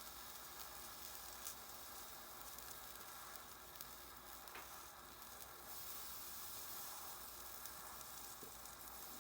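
Faint steady hiss of a small jeweler's torch flame as a prong is soldered onto a 14k gold ring, with a couple of faint ticks.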